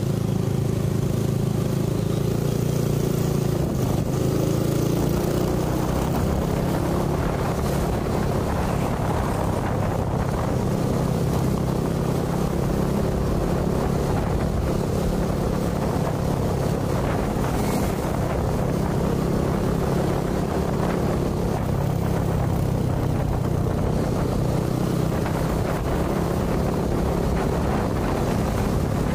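Motorcycle engine running at a steady cruising speed, with wind and road noise on the microphone.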